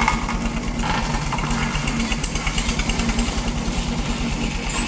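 Road roller's diesel engine running with a steady, rapid chugging beat as the machine works to climb wooden loading ramps onto a truck.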